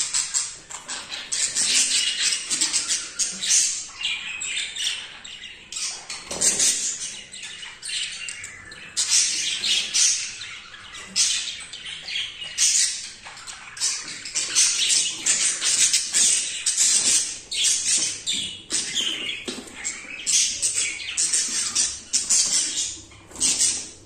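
Budgerigars chattering: a continuous stream of short, high chirps and scratchy squawks, the excited warbling chatter of a male budgie courting a female.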